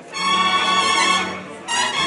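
Wind band playing a procession march: sustained brass and woodwind chords that swell in, break off briefly about a second and a half in, then come back.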